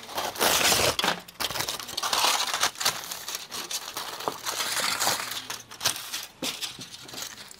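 Aluminium foil crinkling on and off as hands fold and press a sheet of it around a potato.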